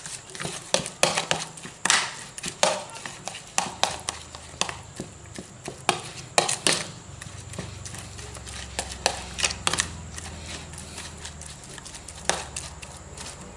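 A metal spoon pressing and scraping raw carp flesh against a plastic bowl, mashing it, with irregular clicks and taps about one or two a second that thin out in the second half. A low hum comes in about eight seconds in.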